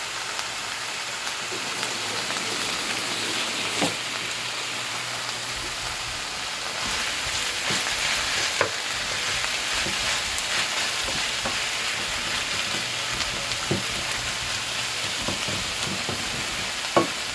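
Chopped purslane sizzling in hot oil in a pan, stirred, with occasional sharp clicks of the utensil against the pan.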